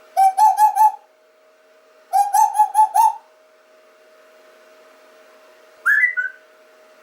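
Whistling: two quick runs of four or five repeated notes, then a single short rising note near the end.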